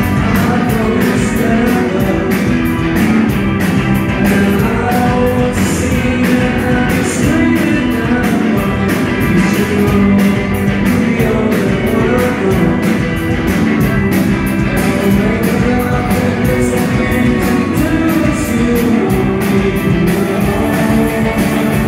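Rock band playing live and loud through the venue PA: electric guitars over a steady drum beat.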